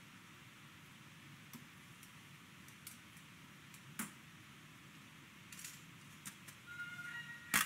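Faint, scattered metallic clicks and taps of a wire spider strainer against a stainless steel saucepan as cabbage leaves are lifted out, with one loud click near the end. A tune starts just before the end.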